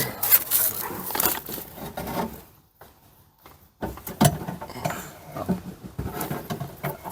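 Irregular metal clinks, scrapes and rustling as a car window regulator is manoeuvred into a door shell, with a quiet pause of about a second near the middle.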